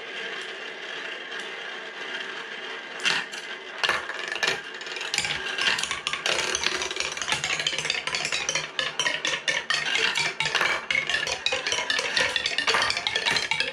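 A marble rolling steadily around a plastic marble-run funnel, then a few separate knocks about three seconds in as it drops through the plastic track. From about five seconds on, a fast, dense clatter of clicks and clacks: marbles dropping leaf to leaf down a wooden Calacolo Tree.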